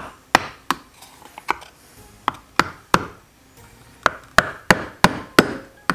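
Claw hammer tapping a small trim nail used as a punch, metal on metal, to drive a tiny pin out of a rifle bolt head. About fifteen sharp light taps, roughly three a second, with a short pause in the middle.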